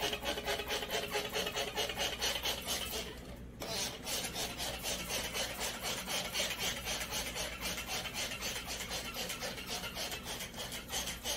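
Rapid, even rasping strokes, like something being filed or scrubbed back and forth, with a short break about three and a half seconds in.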